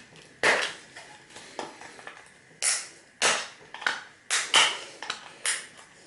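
A screwdriver prying at a stuck part on a vintage game console: a series of about eight sharp clicks and knocks of the tool against hard plastic and metal, irregularly spaced, the loudest about half a second in and again near four and a half seconds.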